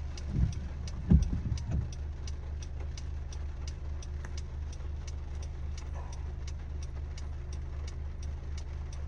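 Car engine idling as a steady low hum inside the cabin, with an even ticking at about two to three clicks a second and a few low thumps in the first two seconds.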